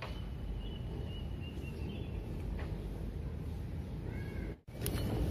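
Steady low outdoor rumble with an animal calling over it: a thin, slightly wavering high call lasting about two seconds at the start, then a short arched call near the end. The sound drops out for an instant near the end.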